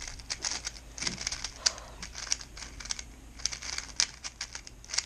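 A 2x2 puzzle cube being turned quickly by hand: a rapid, irregular run of plastic clicks and clacks.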